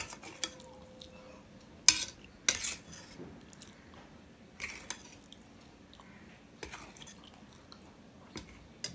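A metal spoon clinking and scraping in a stainless-steel bowl as rasmalai milk is spooned up, with slurps from the spoon in between. The sharp clinks come every second or two, one early on ringing briefly.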